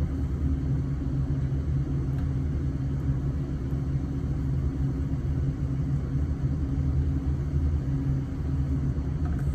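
Steady low mechanical hum from running equipment, even and unchanging.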